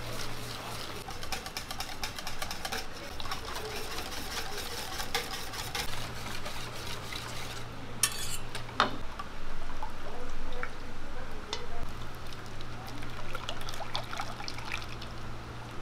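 Wire balloon whisk beating crepe batter in a stainless steel bowl: quick, rattling clinks of the wires against the metal with the slosh of the batter. A couple of louder knocks come about halfway through as milk is poured in from a steel bowl, and near the end the batter streams through a metal sieve, over a steady low hum.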